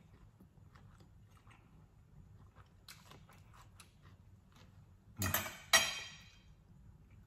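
Soft chewing of crispy fried fish and light fork clicks on a plate, then about five seconds in two loud clatters as a metal fork is set down on the plate, the second ringing briefly.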